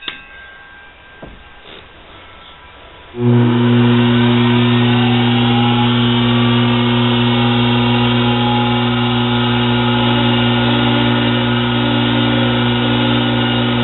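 Metal lathe switched on about three seconds in, its motor coming up to speed with a short rising whine and then running with a loud, steady hum.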